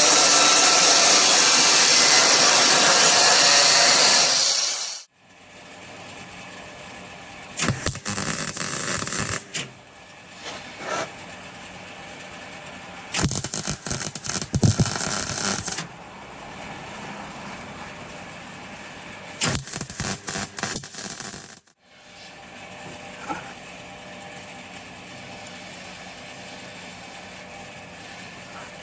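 Power tool cutting 2 mm steel sheet: a loud steady cut for about five seconds, then several shorter bursts of cutting with crackling contact, each a second or two long, between edits.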